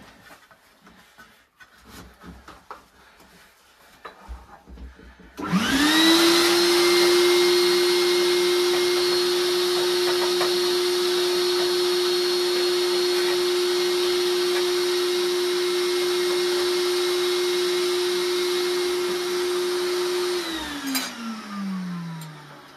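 Vacuum cleaner switched on about five seconds in, its motor whine rising quickly to a steady pitch. It runs steadily for about fifteen seconds, sucking soot and ash out of a sauna stove during chimney sweeping, then is switched off and winds down with a falling whine.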